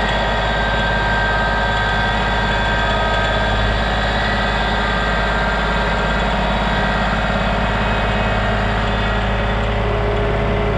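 Tractor engine running at a steady speed.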